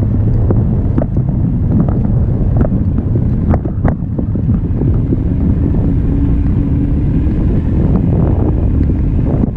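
Wind buffeting the microphone of a camera carried aloft on a parasail harness: a loud, steady low rumble with a few scattered small clicks.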